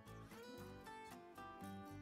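Quiet background music, a string of steady plucked notes.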